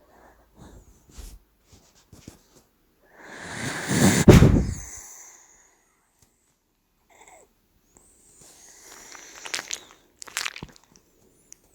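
Sleeping dachshund puppy snoring: one loud, rough snore lasting about two seconds, starting about three seconds in, then a fainter, whistling breath around nine seconds in, with a few small clicks between.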